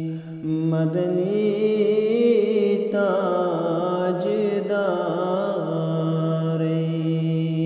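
A man's voice singing a Kashmiri naat (devotional song) in a slow, ornamented line that bends and glides in pitch, from about a second in until near the end, over a steady held drone.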